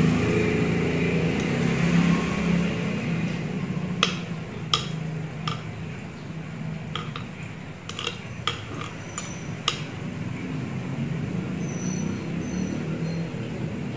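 A metal spoon scraping thick smoothie out of a glass blender jar into a wine glass. The spoon clinks sharply against the glass about nine times at irregular intervals, from about four seconds in to nearly ten, over a low steady hum.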